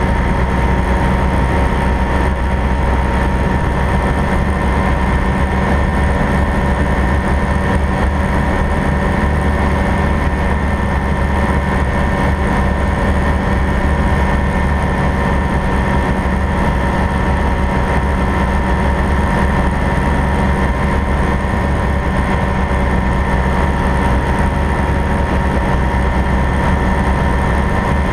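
Light propeller aircraft's engine and propeller droning steadily in cruise flight, heard from inside the cockpit. A strong low rumble with a few constant high tones that do not change.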